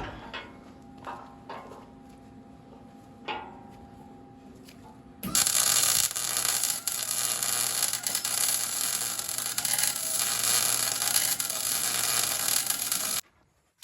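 A few light metal clinks, then a MIG welder's arc crackling and hissing steadily with a low electrical hum for about eight seconds, as a seam is run on a steel bracket. It starts abruptly about five seconds in and cuts off suddenly.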